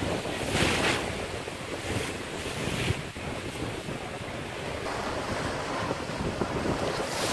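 Small sea waves breaking and washing up a pebble beach, the surf swelling about a second in and again near three seconds. Wind rumbles on the microphone throughout.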